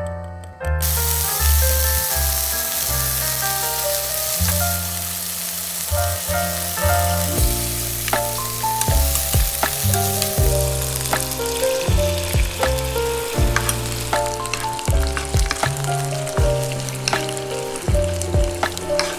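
Pieces of beef large intestine (daechang) sizzling in a frying pan, starting about a second in, continuing as a soy-sauce glaze is reduced over them. Background music plays throughout.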